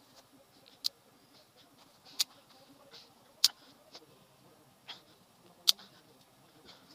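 Half a dozen sharp, irregularly spaced wood cracks and snaps from sticks on a small, smoking campfire of damp wood as more twigs are fed onto it.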